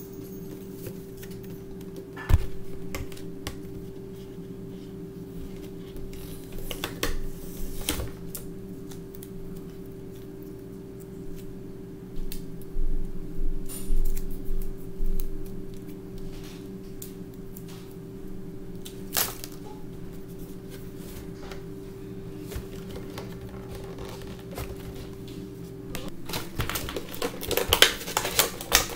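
A cardboard toy box and its clear plastic packaging being handled: scattered knocks and taps, then, from near the end, a dense run of plastic crinkling and clicking as the wrapped figure comes out. A steady low hum runs underneath.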